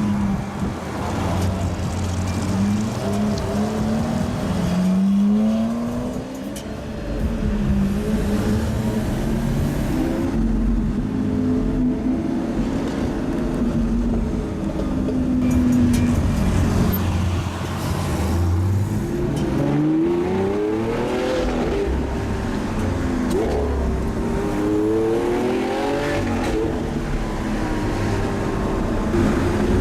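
Lamborghini Aventador SV's V12 engine accelerating hard through the gears, its pitch climbing and dropping back again and again as it shifts, with loud revs several times over.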